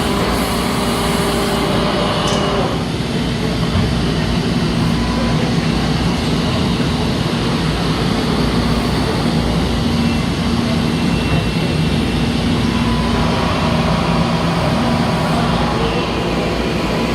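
Traub TNL 26 CNC Swiss-type lathe running, a steady loud machining noise with a low hum.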